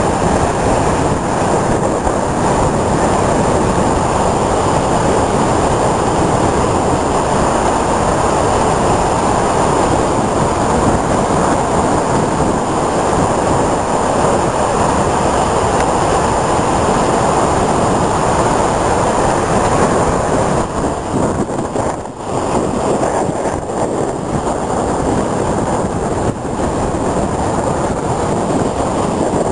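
Heavy storm surf breaking and washing against a concrete sea wall: a loud, continuous rush of water that eases briefly about twenty seconds in.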